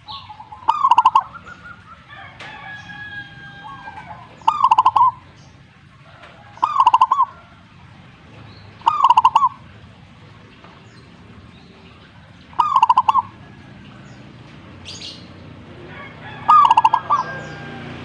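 Zebra dove (perkutut) singing: six loud calls a few seconds apart, each a quick run of clicking notes that runs into a warbling coo. Fainter, higher chirps sound between the calls.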